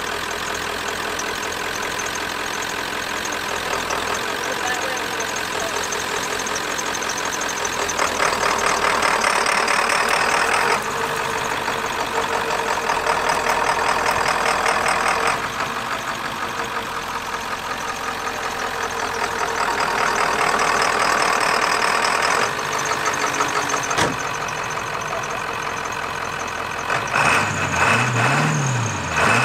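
1995 Ford F-350 tow truck's 7.3-litre Powerstroke turbo-diesel V8 running after a no-start revival, its level stepping up and down several times and growing louder and rougher near the end.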